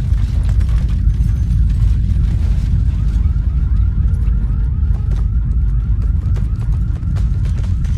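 Heavy low rumbling noise under a car alarm that starts about three seconds in, chirping rapidly at about three to four chirps a second, typical of an alarm set off by ground shaking.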